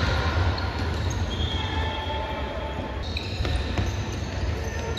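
Basketball game in a gym: sneakers squeaking in short, high chirps on the court and a ball bouncing, over a steady low hall rumble.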